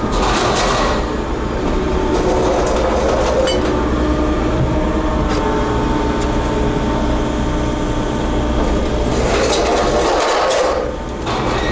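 Diesel engine of a Volvo EW60E wheeled excavator running steadily, heard from inside the cab, with a louder rushing surge at the start and again about nine to ten seconds in.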